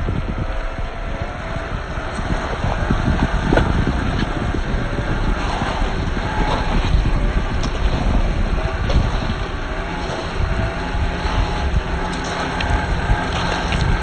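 Traxxas TRX-4 RC crawler's electric motor and gears whining, the pitch wavering up and down with the throttle, over a low rumble of wind on the microphone, with scattered clicks.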